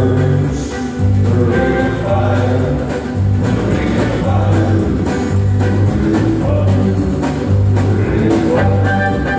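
Live acoustic country band playing: fiddle and several acoustic guitars over a steady, pulsing bass line, with singing.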